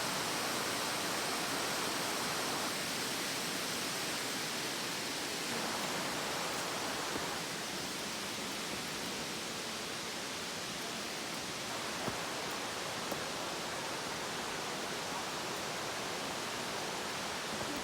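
Steady rushing hiss of falling water from a waterfall, even throughout, with a couple of faint ticks about twelve and thirteen seconds in.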